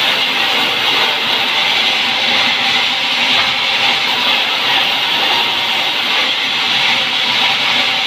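Sawmill band saw running and cutting lengthwise through a pine log fed on its carriage: a loud, steady, high-pitched rushing noise that holds without a break.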